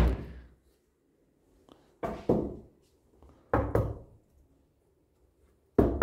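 Painted kitchen cabinet doors being knocked shut, four sharp knocks a second and a half to two seconds apart, the first the loudest.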